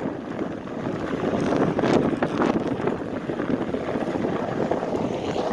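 Wind buffeting the camera's microphone during a ride, an unsteady rumbling rush that swells and dips.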